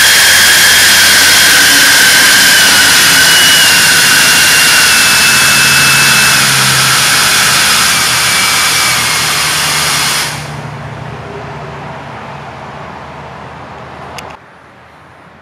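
Electric ducted fan running at full power: a loud rush of air with a high whine that slowly falls in pitch. About ten seconds in the power is cut and the rush drops away to a quieter spin-down, which ends with a brief click near the end.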